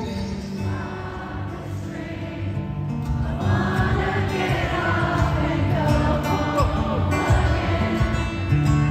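Acoustic guitar playing, with the voices of a large audience rising in from about three and a half seconds in, singing along.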